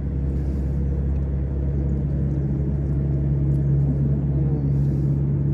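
A steady low rumble with a constant hum, like an engine or motor running.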